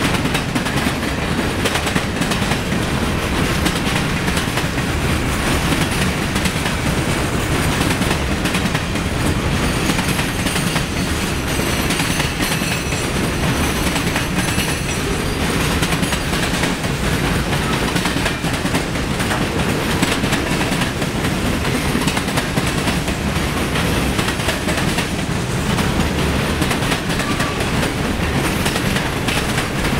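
Freight cars of a Norfolk Southern train (boxcars, tank cars and covered hoppers) rolling past at steady speed: a continuous rumble of wheels on rail with a dense run of clicks as the wheels cross rail joints.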